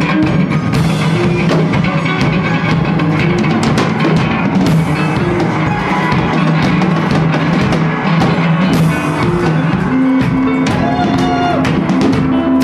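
Live band playing loud, dense music: drums hitting throughout over guitar and a low held note, which steps up to a higher pitch about ten seconds in.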